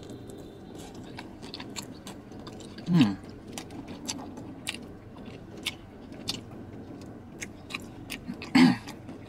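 Close-up chewing of a chicken wing: a string of short wet clicks and lip smacks, with two short hums, about three seconds in and near the end.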